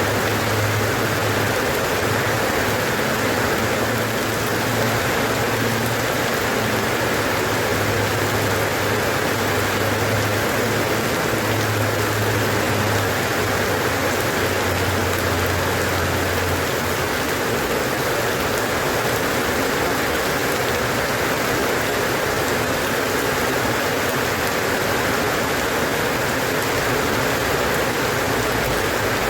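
Steady rainfall, an even hiss of rain on surfaces. A low hum sits underneath and stops a little past halfway.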